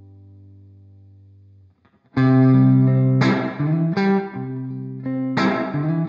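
Electric guitar played through a Strymon Flint V2 tremolo and reverb pedal. A held chord fades and is muted just under two seconds in, then a run of chords is strummed, each with a bright attack.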